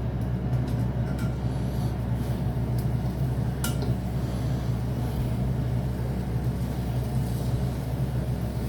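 Steady low hum of a kitchen appliance running, with a few faint light clicks.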